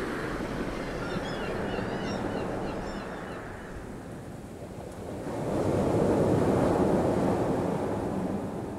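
Waves washing onto a beach, a steady rush of surf that swells into a louder surge about five and a half seconds in and eases off near the end. A few faint high chirps sound over it in the first few seconds.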